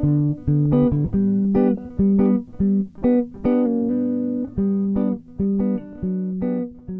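Background music: a plucked guitar playing a light melody in a steady rhythm.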